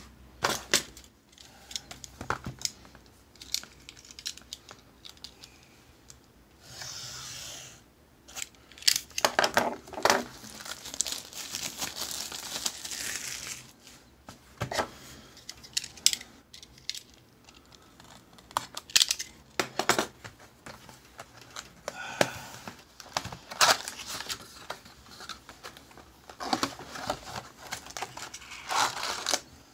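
Packaging being torn and crinkled by hand as a sealed cardboard box of trading cards is unwrapped and its lid pried open: irregular rustling, tearing and clicks in bursts, busiest about ten seconds in and again near the end.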